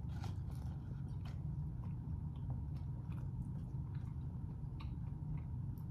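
A person chewing food close to the microphone: scattered wet mouth clicks and smacks over a steady low hum.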